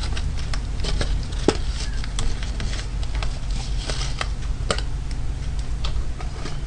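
A steady low electrical hum, with light clicks and taps at irregular intervals, about a dozen in all.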